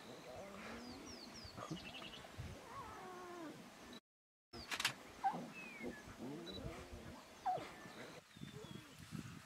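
Lion cub giving several short mewing calls, each rising and falling in pitch, with small birds chirping now and then. The sound cuts out completely for about half a second around the middle.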